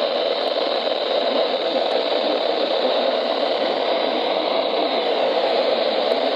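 Weather radio giving out a steady hiss of static through its small speaker.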